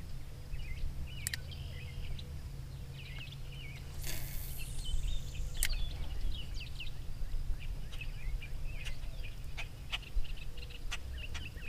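Birds chirping in short repeated calls over a steady low rumble, with scattered sharp clicks. About four seconds in, a brief whoosh falls in pitch.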